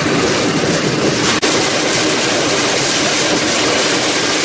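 Pedal-powered rail cart rolling along railway track: a steady loud rumble and rattle of its steel wheels on the rails, mixed with wind noise. The sound cuts out for an instant about a second and a half in.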